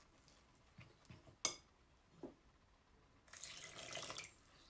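Water poured from a glass measuring jug onto flour in a glass mixing bowl: a soft pour lasting about a second near the end. Before it come a few light taps, one of them sharp.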